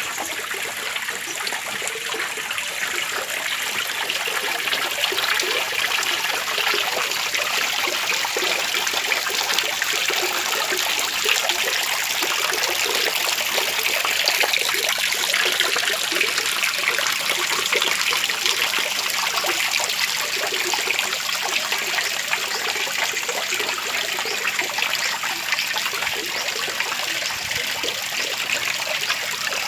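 Water trickling and splashing steadily down a small waterfall, a continuous even rush with no breaks.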